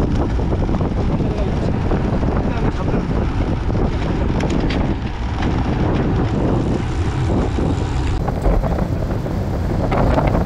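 Wind buffeting the microphone over a steady, low rumble of travel, as from a camera on a moving bicycle or vehicle.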